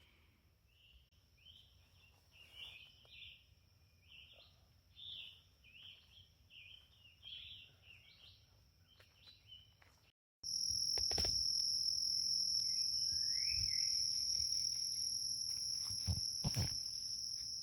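Insects calling: about ten seconds of short repeated chirping calls over a faint steady high trill, then, after a sudden cut, a much louder steady high-pitched insect trill. A single bird call is heard in the louder part, along with a few sharp knocks near the end.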